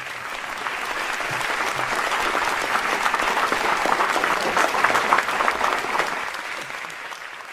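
Audience applauding, a dense patter of many hands clapping that swells to its loudest about halfway through and then tapers off near the end.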